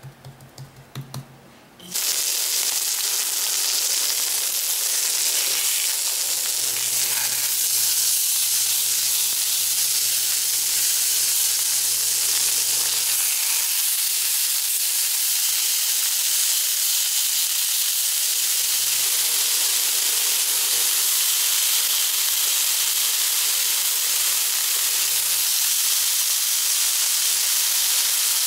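Pork chops sizzling steadily in a hot frying pan, an even hiss that starts suddenly about two seconds in. Before it come a few soft taps as fingers press seasoning into the raw chops, and a faint low hum comes and goes under the sizzle.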